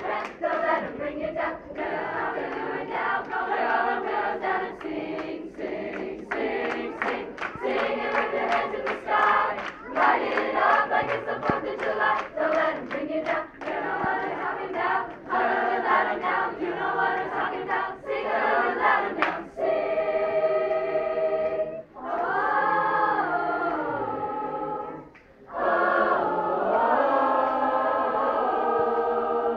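Youth choir singing in harmony: a quick rhythmic passage with sharp accents, then, about two-thirds of the way in, long sustained chords, each held a few seconds with short breaks between them.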